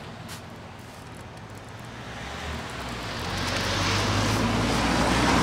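A motor vehicle running close by, its steady noise growing louder from about halfway through over a low engine hum.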